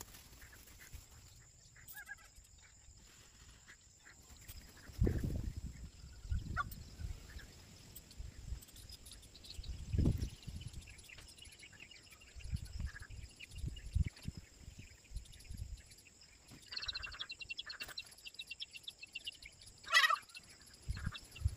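Indian peafowl calling: a few short calls, the loudest a brief one about twenty seconds in, among low bumps on the microphone.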